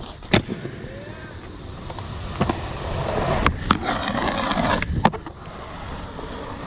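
Skateboard wheels rolling on concrete, broken by about five sharp clacks of the board hitting the ground or coping.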